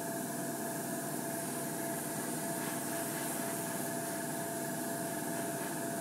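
Gravity-feed airbrush hissing steadily as it sprays paint, with a faint steady hum underneath.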